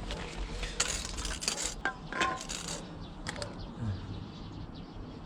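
Dishes, a pot and food containers being handled: scattered clinks and clatters, with a short rustle about a second in, as leftovers are got ready for reheating.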